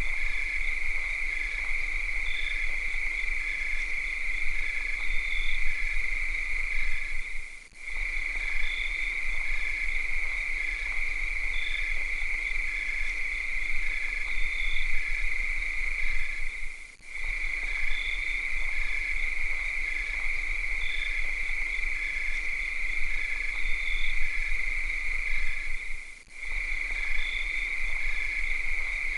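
Cicadas droning in one steady, high-pitched chorus, with a fainter chirping that repeats at an even pace. The whole sound dips out briefly and comes back three times, about every nine seconds.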